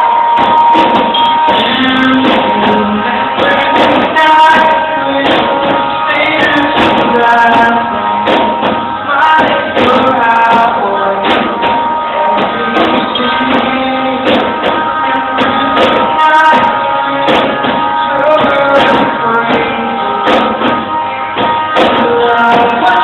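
Live rock band playing loudly, heard from within the audience, with a dull, low-fidelity sound that lacks treble.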